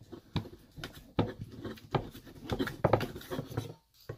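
A steak knife and fork cutting through steak in a stainless steel bowl, giving irregular small clicks and scrapes of cutlery against the metal and the meat. The clicks come closer together about two and a half seconds in, then stop shortly before the end.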